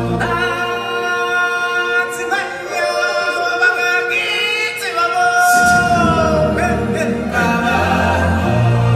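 Stage-show music with a group of voices singing. The bass drops out for the first half and comes back in a little over halfway, under one long held sung note.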